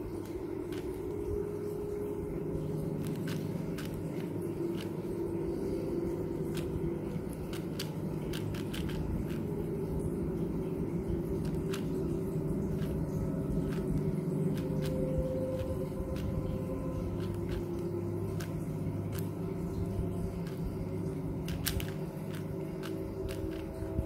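A plastic Yuxin Little Magic 4x4 speed cube being turned fast, its layers giving irregular clicks and clacks, over a steady low drone.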